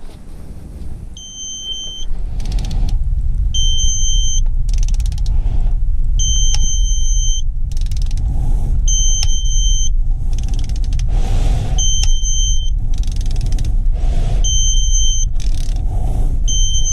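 ACDelco digital torque wrench beeping over and over, short high two-tone beeps every one to three seconds, its alarm that the bolt is being tightened past the 8.9 ft-lb setting. Short scraping bursts fall between the beeps, and a loud low rumble sets in about two seconds in.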